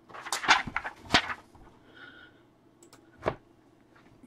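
Sharp clicks and taps of a computer mouse and keyboard: a quick cluster in the first second or so, then a single click a little past three seconds in.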